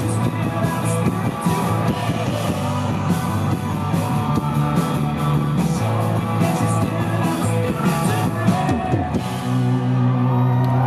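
Rock band playing live in a concert hall, heard from the crowd: electric guitars, bass and drums with repeated cymbal hits, with singing. About nine seconds in, the drums stop and the band holds a ringing chord as the song ends.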